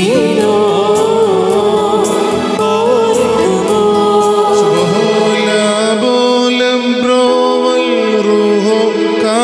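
A man and a woman singing a Christian hymn through microphones over an electronic keyboard. The singing drops out for a few seconds midway while the keyboard plays on, and a sung line returns near the end.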